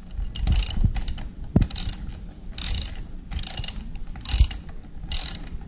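Socket ratchet wrench clicking in short repeated bursts, roughly one a second, as each back-stroke of the handle turns a bolt on a scooter's passenger foot peg mount.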